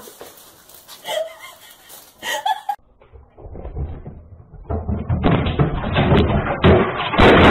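A fast run of muffled thumps and knocks begins about three seconds in. It grows louder and denser from about five seconds in.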